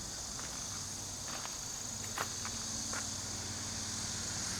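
Steady high-pitched insect chirring, with a few faint footsteps about one and a half, two and three seconds in.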